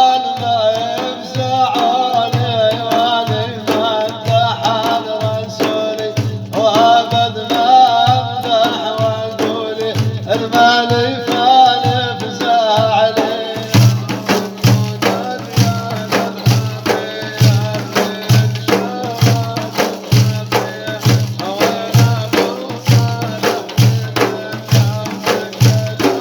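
Folk music with a steady low drum beat. A wavering, ornamented melody carries the first half, then drops away about halfway through, leaving mainly the drums and percussion.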